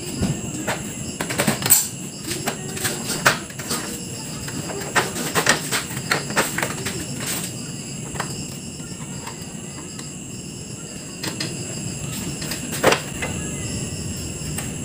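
Plastic rear cover of a 55-inch TCL LED TV being worked loose and lifted off its frame by hand: a run of clicks and knocks as the plastic flexes and its clips let go, busiest in the first half, with one more knock near the end. A steady, high pulsing chirp runs underneath.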